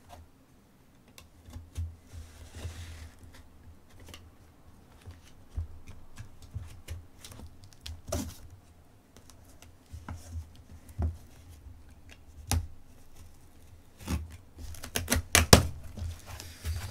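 Utility knife cutting through packing tape and plastic wrap on a cardboard box, with scraping, crinkling and scattered sharp clicks and knocks of the knife and hands against the cardboard. Near the end comes a quick run of loud clicks.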